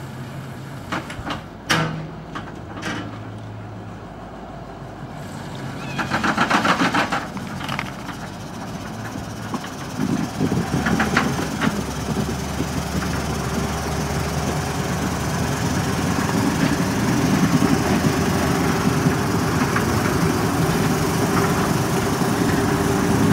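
Brill model 75 railmotor idling, then its engine and wheels on the rails growing louder from about ten seconds in as the railcar moves off and passes close by. A brief loud burst about six seconds in.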